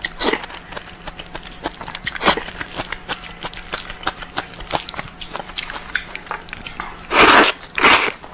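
A person eating noodles with chopsticks: wet chewing and lip smacks throughout, then two loud slurps of noodles drawn into the mouth near the end.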